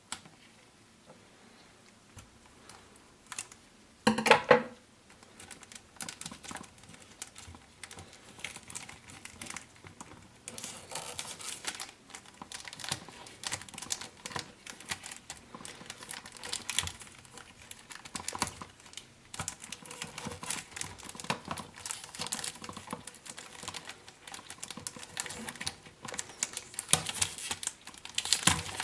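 Cologne packaging being handled and unwrapped: irregular crinkling and clicking, with one louder knock about four seconds in.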